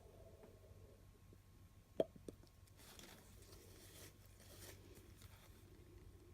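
Near silence, broken about two seconds in by one sharp tap and a lighter one just after, then faint soft brushing sounds.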